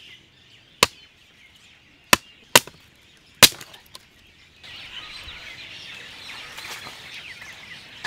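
A billhook chopping into a wooden stick: four sharp chops, spaced irregularly over about three and a half seconds. About halfway through, the chops give way to a steady hiss with birds chirping.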